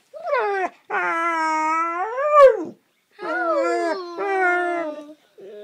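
Staffordshire bull terrier whining and howling in a series of long, drawn-out calls, one rising in pitch and then dropping away about two and a half seconds in. The dog is distressed at being separated from its owners by the bed.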